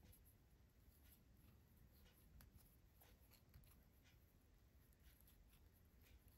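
Near silence, with faint scattered ticks and light scratching from a steel crochet hook working cotton thread.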